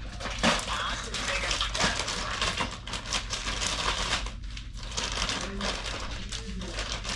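Irregular crinkling and rustling, like something being handled.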